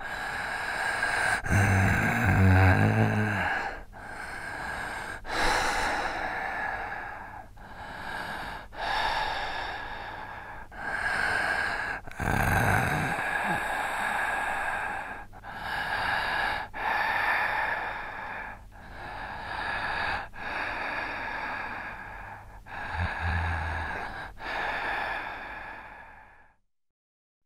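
Heavy human breathing used as a horror sound effect: slow, loud breaths in and out, one every second or two. A few of the breaths carry a low throaty note. The breathing stops suddenly about a second before the end.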